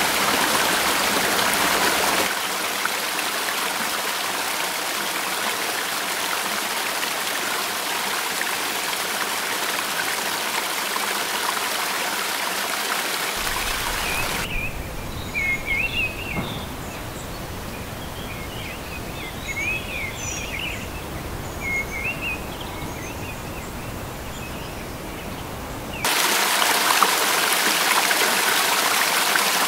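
Mountain stream running over rocks, a steady rush of water that changes with each shot. In the middle the water is quieter and birds chirp over it; near the end it turns to loud rushing white water pouring over rock.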